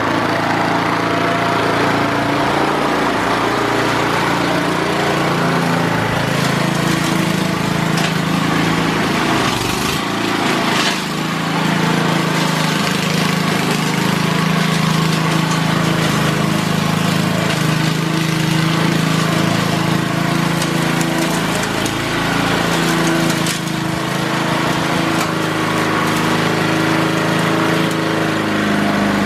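Straight-piped push lawn mower, its small single-cylinder engine running with no muffler. The engine runs steadily, its speed dipping and recovering now and then.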